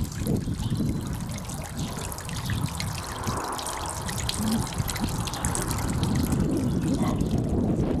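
Garden pond waterfall: several thin streams of water trickling off a mossy stone lip and splashing into the pond, with wind on the microphone.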